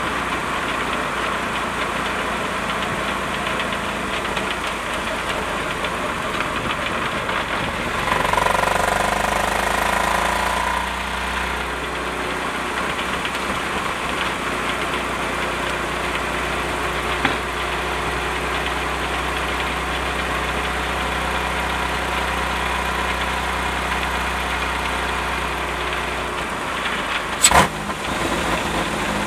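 A GM Series II 3800 V6 engine running, heard from beneath the car close to the Getrag 282 transaxle. The transaxle rattles out of time with the engine and the muffler rattles as well, causes the owner has not yet found. The sound swells for a few seconds about a third of the way through, and there is one sharp knock near the end.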